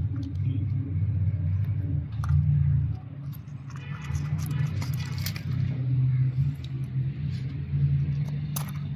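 Metal clicks and a short rattle as a CV boot clamp is worked onto an axle, over a steady low rumble.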